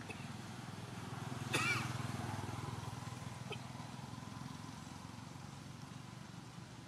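A motor vehicle engine running steadily, swelling over the first few seconds and then slowly easing off, with a thin whine above its hum. A single short, high squeak cuts in about one and a half seconds in.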